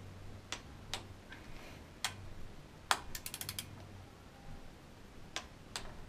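Sharp clicks from a small ratcheting torque wrench and socket as clutch pressure-plate bolts are brought up to 6 foot-pounds. The clicks come singly, about a second apart, with a quick run of ratchet clicks about three seconds in.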